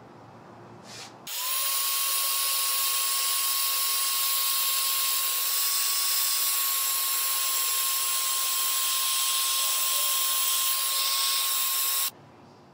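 Electric heat gun switched on about a second in and blowing steadily for about ten seconds: fan hiss with one steady motor whine that rises slightly as it spins up. It cuts off sharply near the end.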